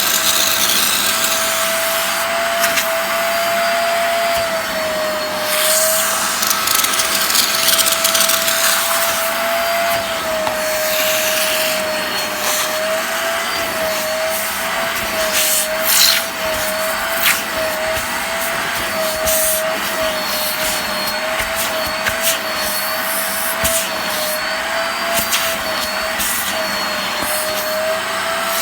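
Hoover Spotless portable carpet cleaner running steadily with a motor whine that wavers slightly in pitch, its hand tool sucking water and dirt out of a soaked fabric car seat. Occasional short scrapes and knocks come from the nozzle on the seat.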